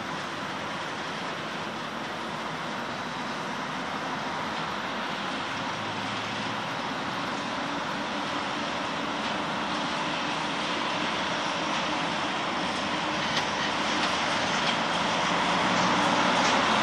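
PKP Cargo ET22 electric freight locomotive hauling a freight train on the approach, its steady running noise growing gradually louder as it nears, with a few sharp clicks near the end.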